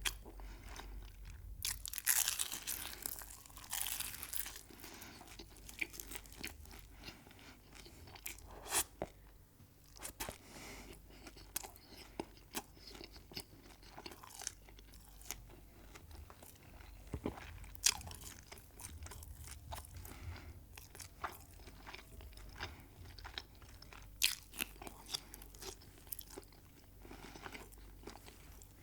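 Close-miked eating: crisp, crunchy bites and chewing of food. There is a dense run of crunching about two seconds in, and sharp single crunches scattered throughout.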